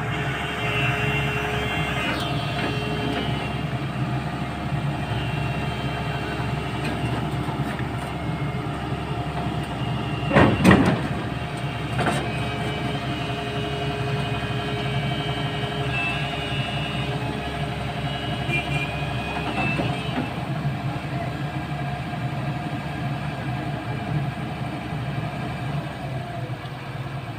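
Heavy diesel machinery running steadily, with a loud knock about ten and a half seconds in and a smaller one a moment later.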